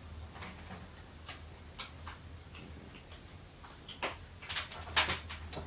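Irregular small clicks and taps of handling, a few sharper ones about four to five seconds in, over a steady low hum.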